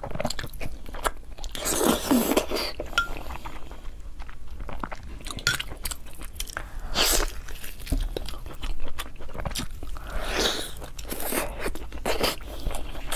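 Close-miked mouth sounds of eating braised meat off the bone: wet chewing, smacking and biting with many small clicks, and a few longer, louder sucking sounds about two, seven and ten seconds in.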